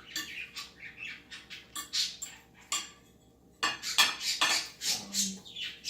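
Pet cockatiel making short, sharp chirps and clicks in quick irregular runs, with a brief pause about three seconds in.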